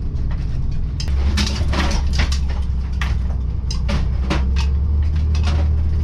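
Converted school bus jolting over a rough dirt road, heard from inside: a heavy low rumble that sets in about a second in, with a run of knocks and rattles in the cabin as the fridge door comes open.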